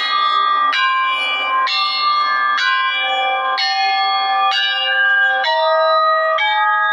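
Ringing bell tones in a steady sequence: a new set of notes sounds about once a second, each ringing evenly until the next replaces it.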